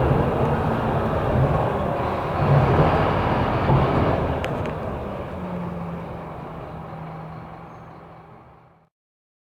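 Scania K270IB rear-engined city bus running, its engine noise dying away steadily over several seconds until the sound cuts off suddenly near the end.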